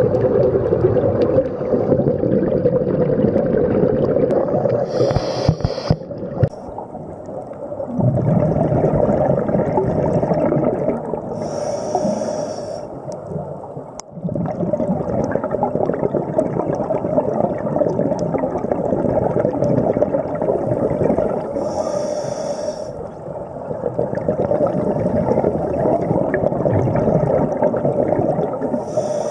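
Underwater audio of scuba diving: a steady, muffled rumble and gurgle of regulator bubbles and water, with short hissing regulator breaths four times.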